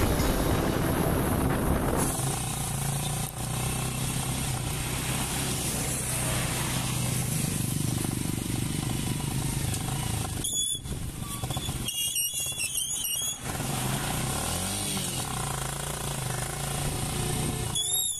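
Motorcycle tricycle engine running steadily while riding down the road. A high, wavering squeal comes in briefly about ten seconds in and again near the end, as the tricycle pulls up.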